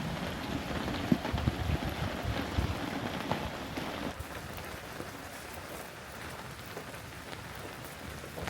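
Rain falling steadily, with heavier drops striking a surface close by. It eases a little after about four seconds.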